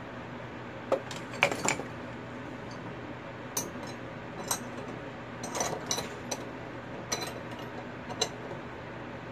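Metal tools and pieces clinking and knocking at a steel bench vise as they are handled and set down, in separate irregular clinks, a few of them in quick clusters, over a steady low hum.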